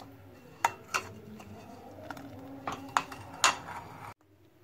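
Steel spoon stirring thick milk and sago pearls in a cooking pan, clinking against the pan about six times. The sound cuts off abruptly shortly before the end.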